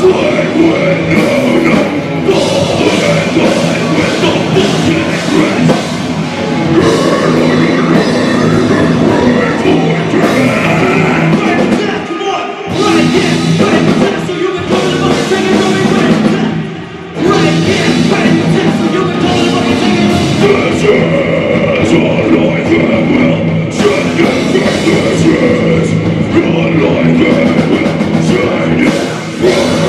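Live heavy rock band playing loud, with distorted electric guitars, bass, a drum kit and shouted vocals. The music drops out briefly twice in the middle.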